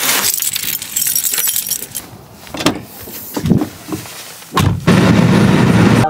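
A bunch of keys jangling at a door lock, with clicks and knocks from the lock and handle as the door is unlocked. From a little before the end, a louder, steady rushing noise takes over.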